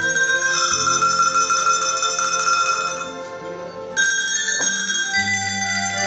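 A tune played on a set of tuned cowbells, each bell shaken in turn so its note rings out and dies away, over a backing with low bass notes. A new, bright bell note is struck sharply about four seconds in.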